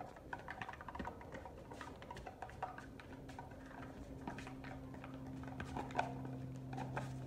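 Quick, irregular light clicks and scuffs of a German Shepherd's claws and a person's sandals on stone paving as they scramble after a ball. A steady low hum comes in about a third of the way through.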